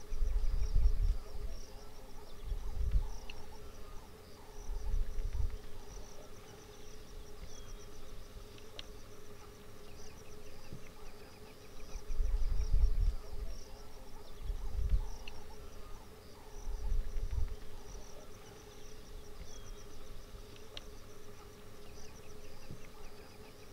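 Insects chirring steadily over a faint constant hum, broken every few seconds by dull low rumbles that are the loudest sounds.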